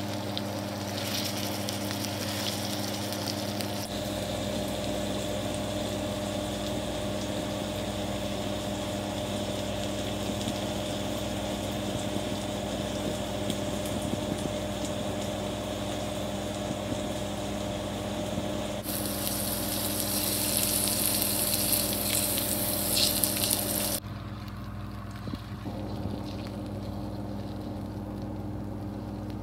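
Steaks sizzling as they fry in hot oil in a pan, over a steady low hum. Near the end the sizzle turns louder and brighter for about five seconds, then drops off suddenly to a quieter sizzle.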